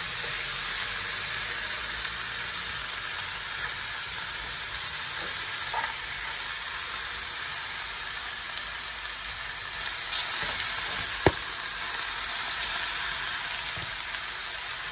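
Curry-seasoned goat pieces sizzling as they hit hot oil and curry paste in a preheated pan, with a fork scraping the meat in. One sharp clink about eleven seconds in.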